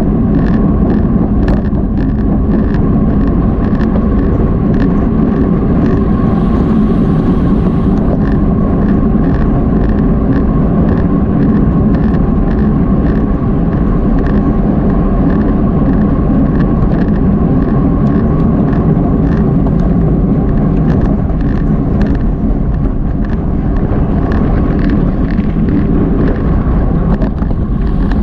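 Racing road bicycle at speed: a steady rush of wind on the action camera's microphone and tyre and drivetrain noise, with a steady whine and light ticks about twice a second.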